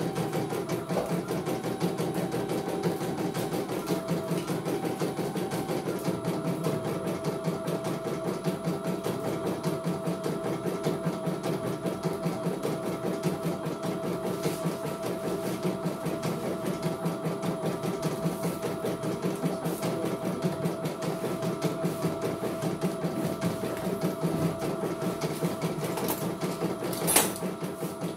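CNY E900 computerized embroidery machine stitching: a fast, steady needle clatter over a motor hum whose pitch steps slightly lower about six seconds in. A single sharp click near the end.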